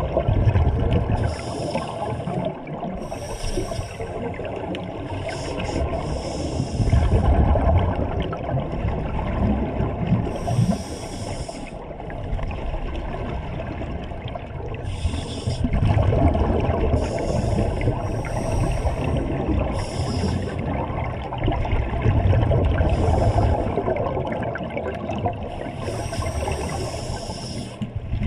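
Scuba divers breathing through regulators underwater: hissing breaths recurring every few seconds over a low bubbling rumble of exhaled air.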